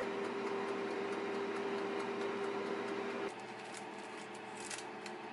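Countertop air fryer running, a steady fan hum with a low held tone, which stops abruptly about three seconds in. Then quieter room tone with a few light scrapes of a spatula sliding under a baked cookie on parchment paper.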